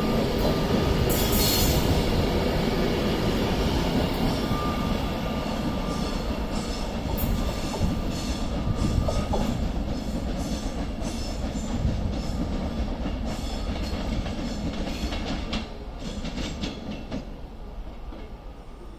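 Train running past on the tracks: a steady rumble with wheels clicking over rail joints and a thin high whine around the middle. The sound drops about three-quarters of the way through and fades as the train moves away.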